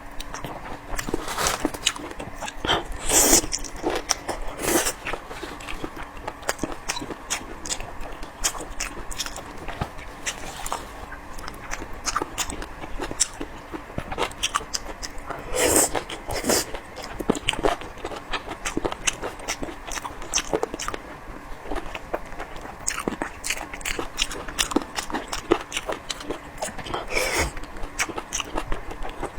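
Close-up chewing and wet mouth clicks from someone eating spicy boneless chicken feet, going on without a break, with a few louder smacks now and then.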